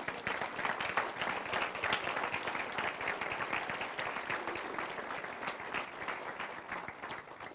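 Audience applause: many people clapping together, slowly dying away near the end.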